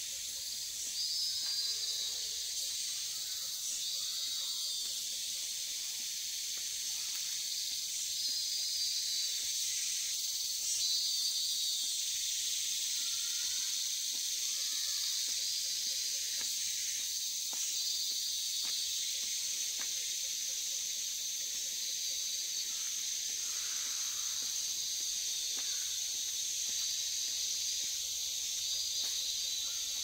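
Tropical forest insect chorus: a steady, high-pitched shrill drone, with a brighter wavering trill above it that comes and goes every few seconds.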